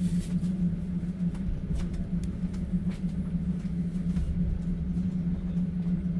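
Inside a moving passenger train's open sleeper car: a steady low rumble of the running carriage with a strong hum, and faint scattered light clicks and rattles.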